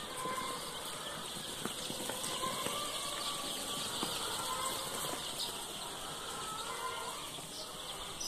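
Hundreds of baby chicks peeping together in a brooder, a steady dense chorus of short high cheeps.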